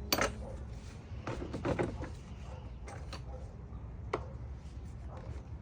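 Irregular clicks and clunks of plastic and metal parts being handled and unclipped while a car's air box is taken apart, over a low steady background hum.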